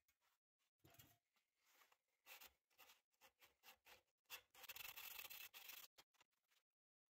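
Faint rubbing of sandpaper worked back and forth in a saw kerf in a half-inch wooden dowel, widening the slot. It is a few short strokes early on and a run of strokes in the second half, amid near silence.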